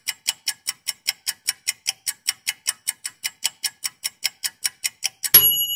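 Rapid, evenly spaced clock-like ticking, about five or six ticks a second, as from a ticking timer. Near the end it stops with a single bell ding that rings on and slowly fades.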